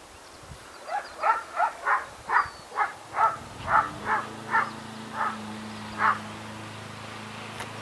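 A rhythmic series of about a dozen short croaking animal calls, spacing out towards the end. A steady low hum comes in about halfway.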